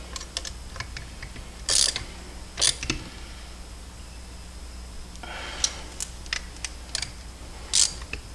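Metal hand tools clicking and scraping on a NEMA 34 stepper motor's mount as its bolts are tightened by hand: scattered light clicks with three short rasping scrapes, about two seconds in, a second later, and near the end.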